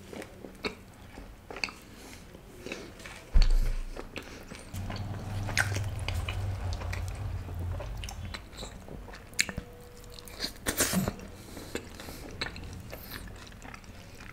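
Close-miked chewing: wet mouth clicks and crunching of a person eating a mouthful of paneer kali mirch with naan and raw onion. A low thump comes about three seconds in, and a low hum runs from about five to eight seconds.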